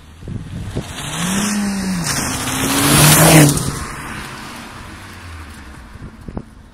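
Volkswagen Golf IV GTI driving past at close range under acceleration, its engine note rising and falling. It is loudest as it passes a little over three seconds in, then fades as it drives away.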